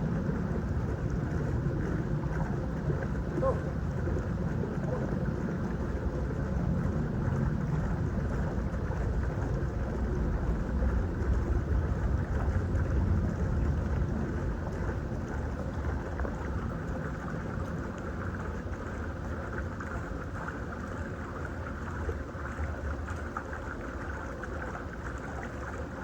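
Steady low rumble of an engine running at a distance, with a few faint steady tones over it. It eases off a little about halfway through.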